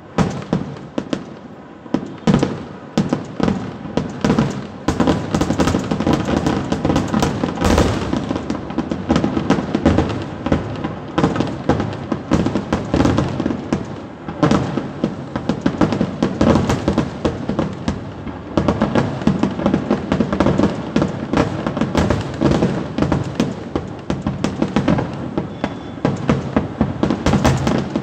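Kerala temple-festival fireworks (vedikettu): a dense, rapid-fire barrage of firecrackers and shells going off in unbroken succession. It builds from a lull within the first couple of seconds and eases briefly around the middle before picking up again.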